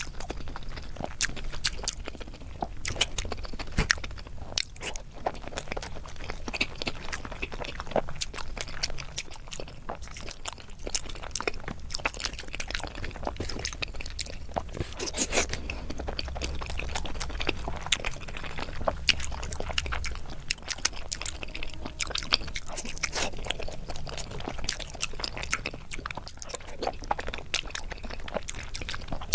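Close-miked chewing and biting of food, with wet clicks and crunches scattered throughout.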